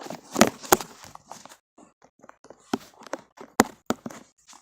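Handling noise from the camera being moved and propped up: a series of sharp knocks and bumps, with a loud pair early on and more scattered clicks about three and a half seconds in.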